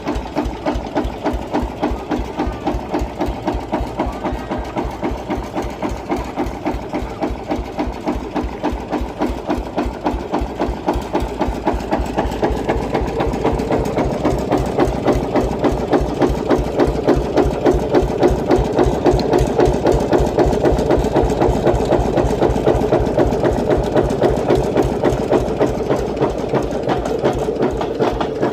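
Diesel engine idling with a steady, even knock of about four beats a second, growing a little louder about halfway through.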